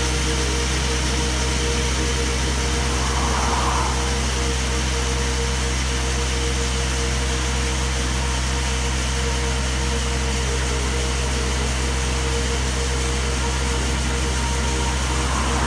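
Xcalibre T5 diesel coring rig running steadily while its core barrel cuts into the road, with water slurry at the cut. A constant low hum with a steady whine over it.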